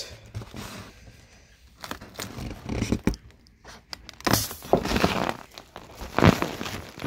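Foil balloon crinkling and crackling as it is handled and its neck is cut open with a knife, with irregular sharp rustles and tearing of the film.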